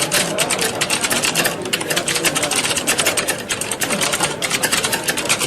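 Many computer keyboards being typed on at once: a dense, continuous clatter of overlapping key clicks, as in a room full of candidates taking a typing test.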